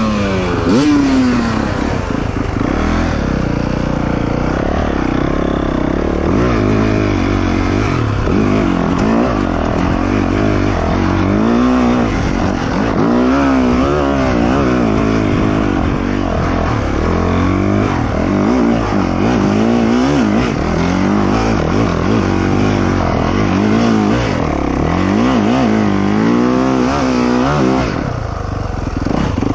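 Yamaha YZ450F dirt bike's single-cylinder four-stroke engine revving under load up a steep hill climb, its pitch rising and falling over and over with throttle and gear changes.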